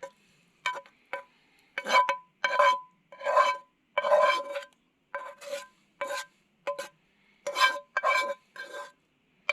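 A metal utensil scraping food out of a metal pan into a cooking pot: about a dozen quick, uneven scrapes and knocks, the metal ringing at the same pitches with each stroke.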